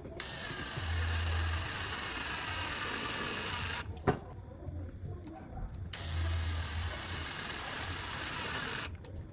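A bike ratchet mechanism spinning with a rapid, continuous clicking whir in two runs of about three seconds each, with a single sharp click between them.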